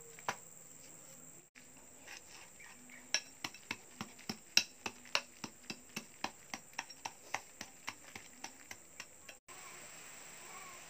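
A steel bar tapping and chipping at the cast cement of a homemade wood stove, opening out its fire mouth: a steady run of sharp knocks, about three a second, from a few seconds in until near the end.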